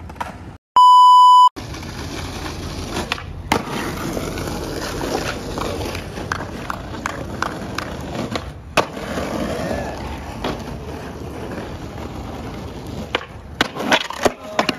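Skateboard wheels rolling over rough, gritty asphalt with scattered clicks, ending in a cluster of sharp clatters as the skater bails and the board slams down. About a second in, a loud electronic beep tone cuts in briefly.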